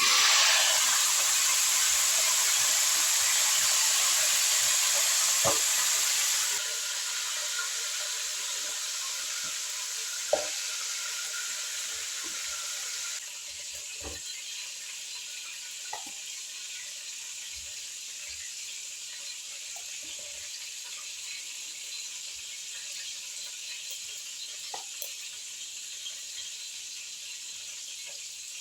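Fish frying in hot oil in a pot: a steady sizzle that starts loud and suddenly, then drops in level twice, with a few light knocks of a utensil or the pot.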